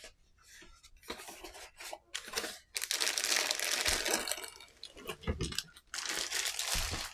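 Clear plastic bag crinkling around the lens case and the cardboard box rustling as the wrapped case is lifted out. The loudest, longest crinkling starts just under three seconds in, and a shorter burst comes near the end.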